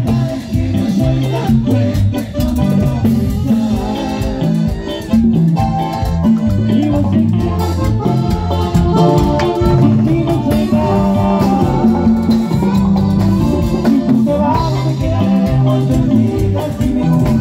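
Live band music played loud through a PA: accordion and keyboard over a steady dance beat, with a male singer's voice.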